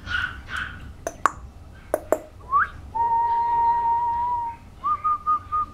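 A few sharp mouth clicks, then a person whistling: a short rising note, one steady note held for about a second and a half, then three short higher notes.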